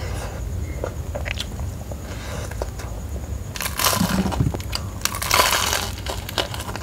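Biting and chewing into super-crispy battered fried chicken: the crust crunches loudly in two bouts, the first a little past the middle and the second about a second later, with small mouth clicks before them.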